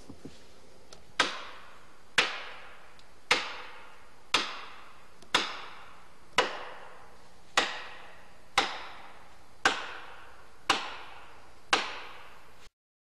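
Eleven heavy blows of a striking tool during tree felling, about one a second, each a sharp crack with a short echoing tail. The sound cuts off suddenly near the end.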